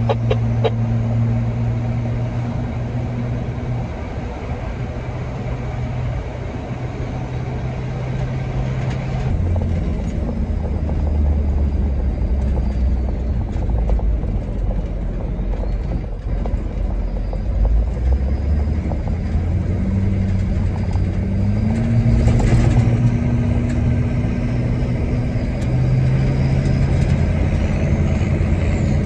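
A vehicle engine running steadily while driving, over road rumble. Its pitch shifts a few times and rises about two-thirds of the way through, where a brief louder rush comes.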